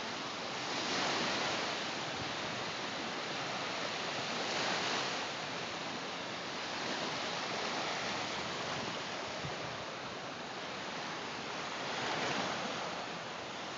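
Small lake waves breaking and washing up on a sandy shore: a steady rush that swells every few seconds.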